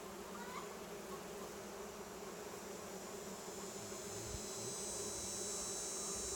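Honey bees humming steadily around an opened hive during a frame inspection. A high, steady insect trill grows louder about four seconds in.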